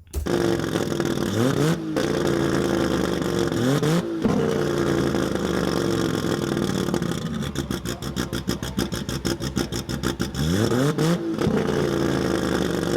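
2700 hp drag-racing Holden VL Commodore's engine running lumpy and blipped sharply three times, each rev rising quickly and dropping away. In the middle it runs with a fast, choppy pulsing before the third blip.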